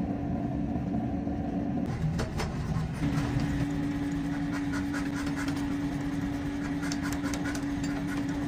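Forge-shop machinery running with a steady motor hum around a belt-driven power hammer. The hum breaks off briefly about two seconds in, then many light, irregular clicks and taps join it, with no heavy hammer blows.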